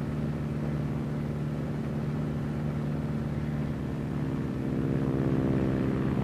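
De Havilland Chipmunk's four-cylinder Gipsy Major piston engine droning steadily at an even pitch, growing slightly louder about four seconds in.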